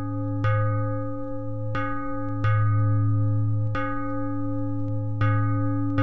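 A bell rung in a song's instrumental opening: five strikes at uneven intervals, each ringing on into the next over a steady low tone.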